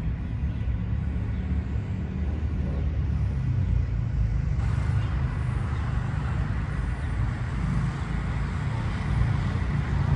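Outdoor city traffic noise: a steady low rumble of road traffic, with a broader hiss that swells about four and a half seconds in.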